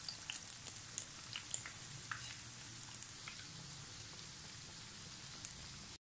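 Hot oil sizzling steadily with scattered small pops and crackles as battered potato-and-cheese sandwiches shallow-fry in a frying pan over medium-high heat.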